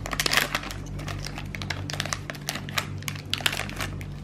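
Plastic toy packaging being handled and opened by hand: a dense, irregular run of small clicks and crackles, over a steady low hum.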